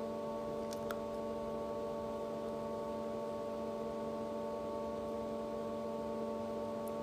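Steady electrical hum made of several held tones, with a faint click just under a second in.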